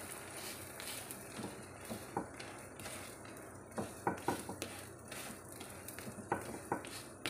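Egg-coated paratha frying in oil on a flat tawa with a faint, steady sizzle, while a flat spatula presses and taps on it, giving a dozen or so short clicks and scrapes.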